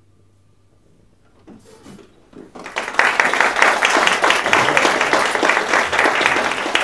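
Audience applauding after a hush: a few scattered claps, then full applause from about three seconds in.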